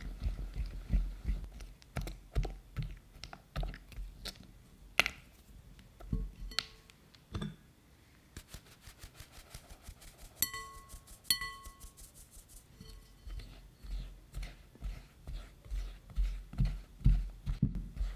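Silicone spatula stirring and pressing a thick chocolate mixture in a glass bowl, a run of soft low thumps and knocks. A little before the middle comes a fast patter of taps as the fine-mesh metal sieve of cocoa powder is shaken over the bowl, followed by two short ringing clinks.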